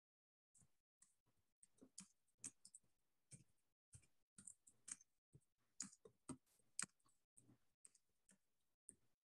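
Faint, irregular clicking at a computer, several clicks a second, over near silence.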